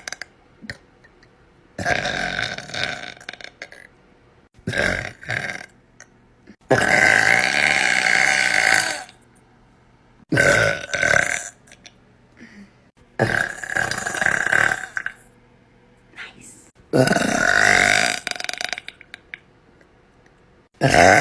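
A woman burping over and over: six separate burps with pauses of a second or two between them, the longest lasting about two seconds, and another starting right at the end.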